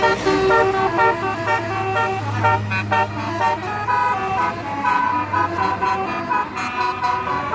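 Bus telolet horn, a multi-tone musical air horn, playing a quick run of melodic notes that change several times a second, over the low steady hum of a bus engine.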